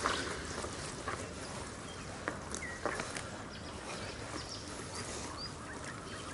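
Oars working a small inflatable boat on a lake: water noise with a few sharp, irregular knocks from the oars, and a few short high chirps.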